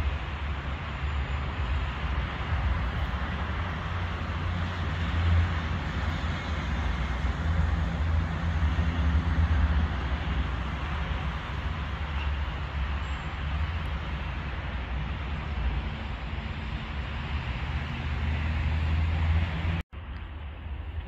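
Wind buffeting the microphone outdoors: a loud, gusty low rumble with a steady hiss over it. It breaks off for an instant near the end, then carries on with less hiss.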